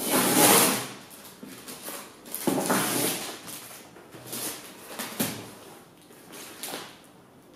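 Clear plastic delivery-note pouch being peeled off a cardboard box and the paper slips inside pulled out: a run of rustling, tearing scrapes, the loudest in the first second, then several shorter ones.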